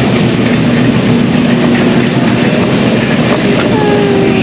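Wheels of a pushed cart rattling steadily as it rolls over a tiled floor.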